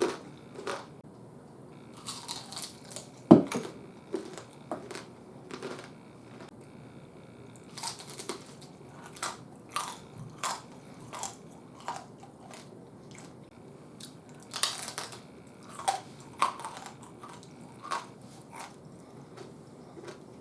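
Close-up crunching and chewing of crispy fried pork belly chicharrones: a loud sharp bite about three seconds in, then irregular crackling crunches as the pieces are chewed.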